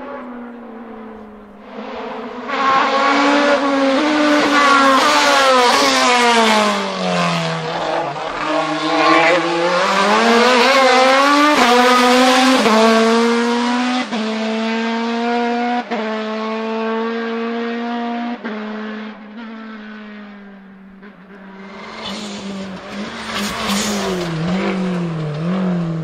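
Hatchback hillclimb race car engine at hard throttle, the note stepping down and climbing again through gear changes, sagging in pitch and then rising as it pulls away. Near the end a second car's engine comes in with a wavering pitch.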